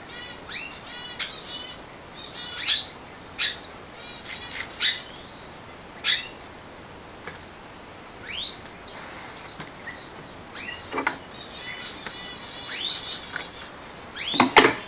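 Small birds chirping over and over, with short rising chirps and quick trills. Near the end comes a loud, sharp snip and crackle as scissors cut the mesh tape.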